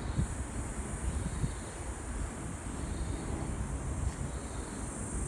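Insects making a steady high-pitched drone, with a low rumble underneath.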